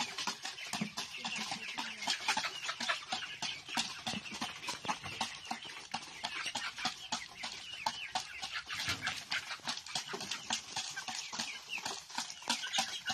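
A flock of chickens clucking as they crowd plastic feeders, with a dense, continuous patter of quick taps from beaks pecking feed.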